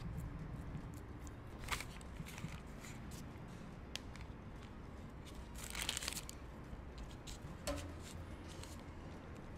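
Soft handling sounds as puff pastry and the baking paper under it are lifted and rolled over sausage-meat filling: light clicks and crinkling rustles, the loudest crinkle about six seconds in, over a low steady hum.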